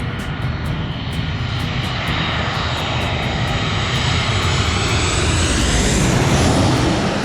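Airliner's engines passing low overhead, the rumble growing louder to a peak about six seconds in. Its high whine falls in pitch as the plane goes over.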